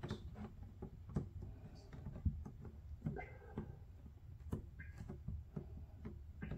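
Faint scattered clicks and light taps of fingers pressing and shaping putty on a hollow plastic blow mold, over a low steady hum.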